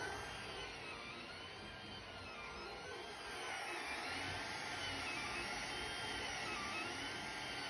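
Creality Ender 3 3D printer printing a first layer: its stepper motors whine in repeated rising and falling arcs, about once a second, as the print head moves back and forth, over the steady whir of its cooling fans.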